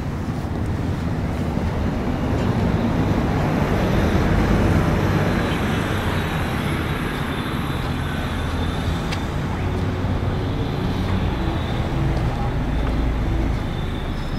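City street traffic: vehicle engines and tyre noise, a steady rumble that swells as a vehicle passes about four seconds in.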